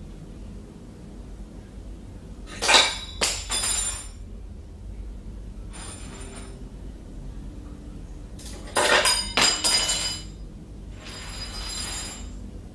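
Kitchenware clattering and clinking with a metallic ring. There is a loud burst about two and a half seconds in and another about nine seconds in, with fainter rattles between them and near the end.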